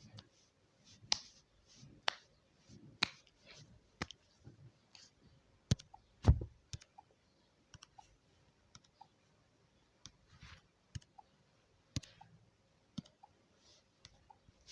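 Ticking of a countdown timer, sharp clicks about once a second, with one dull thump about six seconds in.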